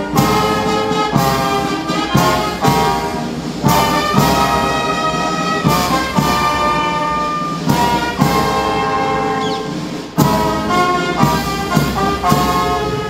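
A brass band playing a slow ceremonial tune in held notes, with the phrases opening on strong accents.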